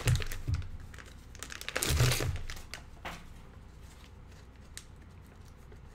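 Crinkly packaging being handled and torn open as a filament roll is unwrapped, in a few noisy bursts during the first half, then quieter scattered rustles and clicks.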